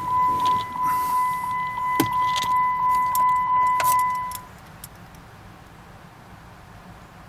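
Jeep Wrangler's warning chime sounding with the driver's door open: a steady high electronic tone, slightly pulsing, that cuts off about four seconds in. A couple of sharp clicks from handling in the cab.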